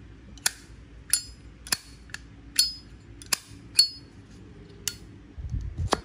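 Zippo lighter's hinged metal lid being flicked open and snapped shut, about eight sharp metallic clicks with a bright ring, spaced unevenly.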